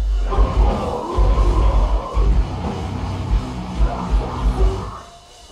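Metalcore band playing live, heavy and loud, with pounding kick drums under distorted guitars. Near the end the band stops dead for a moment, then crashes back in.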